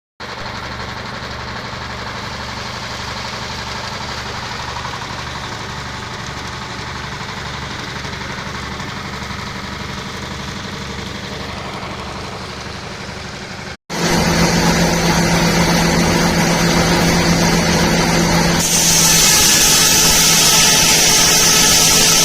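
Detroit Diesel 6-71 two-stroke diesel running steadily after sitting unused for a couple of weeks. About two-thirds of the way through, the sound cuts abruptly to a louder, closer engine sound. A few seconds later a strong high-pitched whine joins it.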